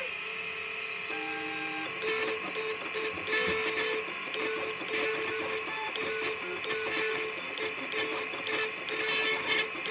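Computer-controlled engraving machine cutting letters into a chrome pocket watch case. The spindle gives a steady high whine, and the drive motors whir in repeated short on-off pulses as the cutter traces the letters.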